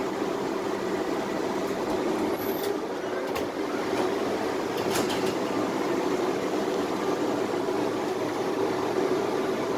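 Steady running noise of a Tatra T3SU tram, heard from inside the car, with a few short clicks about three and five seconds in.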